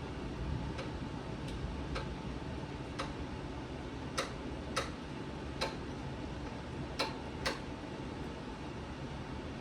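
Irregular sharp clicks, about nine over several seconds and loudest near the middle, over a steady low noise.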